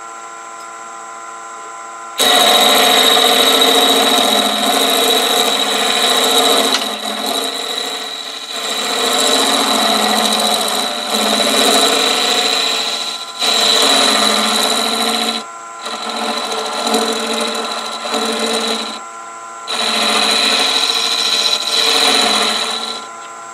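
Nova wood lathe running with a steady motor whine. About two seconds in, a round-nose turning tool starts cutting the spinning wooden piece: a loud, rough scraping hiss that breaks off briefly twice as the tool is lifted, and stops just before the end.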